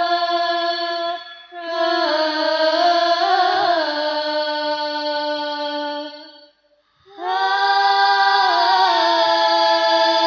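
Singing of an Islamic devotional song: a high voice holds long, drawn-out notes in three phrases, with a short break about a second in and a longer gap of about half a second around six and a half seconds in, before the next phrase.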